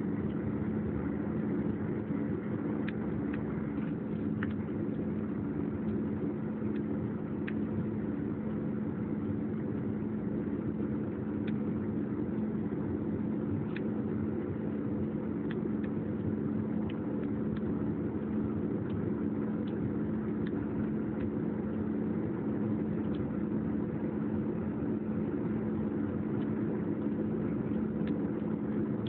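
Airbus A320 cabin noise in the climb after takeoff, heard from a window seat: a steady drone of the jet engines and rushing air with a constant low hum, holding an even level throughout.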